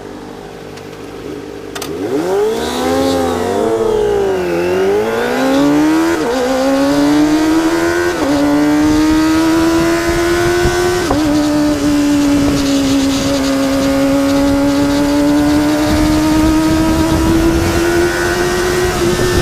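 Kawasaki ZX25R's 250 cc inline-four through a Sphere stainless-steel full-system exhaust: revved up and down twice, then accelerating hard through the gears with upshifts at about six, eight and eleven seconds, then holding a steady high rev.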